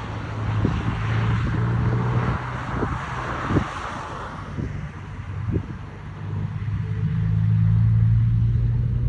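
Volvo FH truck's straight-six diesel rumbling through an aftermarket exhaust, a deep steady note that weakens in the middle and grows stronger again over the last couple of seconds. A hiss in the first half fades out about halfway through.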